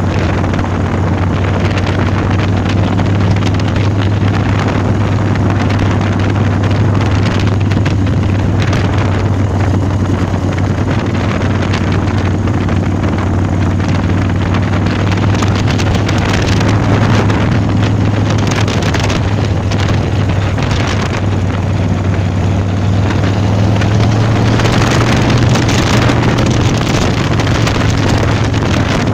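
Big Dog Mastiff chopper's S&S 117 cubic-inch V-twin engine running steadily at cruising speed, with wind buffeting the microphone.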